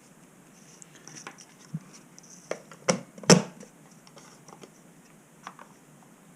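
Handling noise from a small plastic battery charger and lithium battery: a scatter of light clicks and knocks, the two loudest close together about three seconds in.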